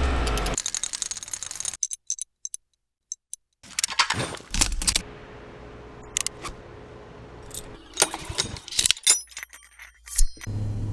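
Scattered sharp clicks, taps and light metallic rattles, thickest in a cluster near the end, with a faint steady hum in between and two short near-silent gaps.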